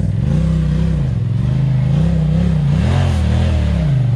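Side-by-side UTV engine revving up and down in a series of short throttle blips, about five rises and falls in four seconds, as the machine is worked over rocks while rock crawling.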